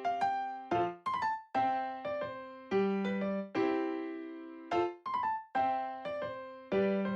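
Background music: a piano or keyboard melody played in gentle phrases, each note struck and fading away.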